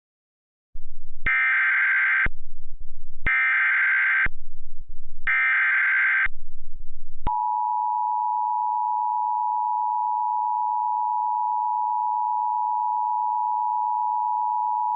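Emergency Alert System tones: three one-second bursts of SAME digital header data, each a rapid warbling squawk, then the two-tone EAS attention signal held steadily for about eight seconds. Together they announce an incoming severe thunderstorm warning.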